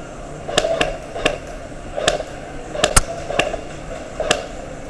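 Airsoft guns firing single shots in an indoor close-quarters game: about nine sharp snaps at irregular intervals, with duller knocks in between.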